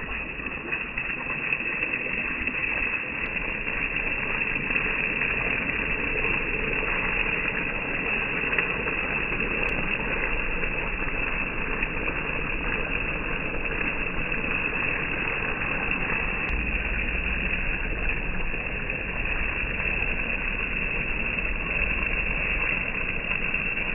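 Chocolate sauce sizzling steadily on a hot cast-iron sizzler plate.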